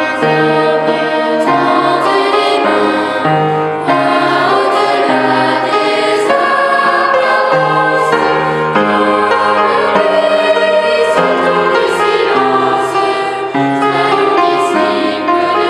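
Children's choir singing a hymn in three voice parts, held notes moving in steps, with low sustained bass notes underneath.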